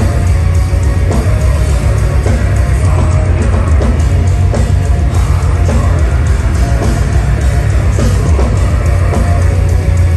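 Deathcore band playing live at high volume: heavily distorted guitars and bass over fast, pounding drums.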